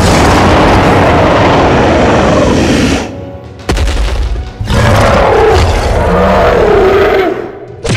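Added monster sound effects over background music: a long loud roar falling in pitch, a sudden boom about three and a half seconds in, then a second wavering roar.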